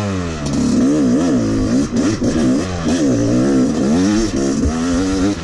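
Yamaha 250 two-stroke dirt bike engine revving up and down repeatedly as the rider works the throttle along a twisty trail, its pitch rising and falling over and over.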